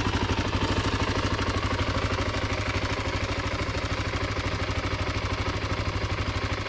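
Honda XR250R's single-cylinder four-stroke engine idling steadily, its exhaust beating in a rapid, even pulse.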